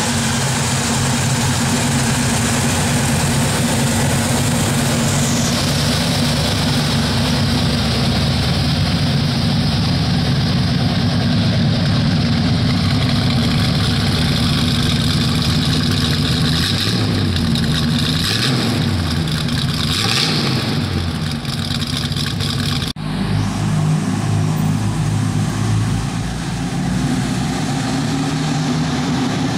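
Rebuilt 350 cubic-inch small-block Chevy V8 with a mild cam, running through ceramic-coated headers and dual Magnaflow exhausts: it idles steadily, is revved a few times about two-thirds of the way through, then the truck pulls away at low speed.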